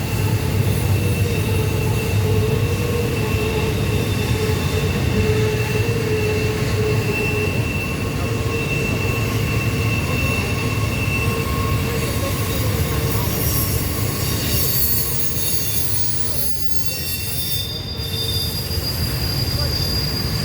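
Intermodal freight train rolling around a tight curve, with its wheel flanges squealing against the rails in several steady high pitches over a continuous low rumble of the cars. The squeal tones shift partway through, and a new higher one sets in near the end.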